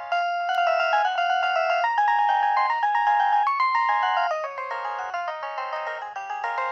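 Nokia 2125i preloaded polyphonic ringtone playing through the phone's small speaker: a quick synthesized melody of several notes at once, thin with no bass.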